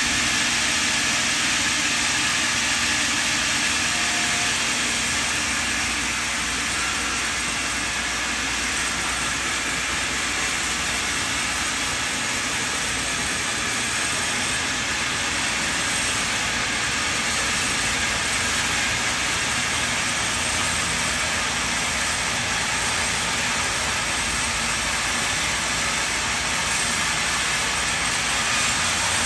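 Large vertical band saw at a sawmill running and ripping a thick timber slab as it is pushed through the blade, a steady noise without breaks.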